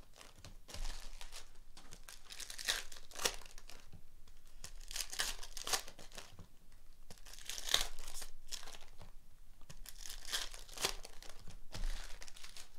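Foil trading-card pack wrappers being torn open and crinkled in the hands, with the cards handled. Irregular crackly rustles a second or two apart.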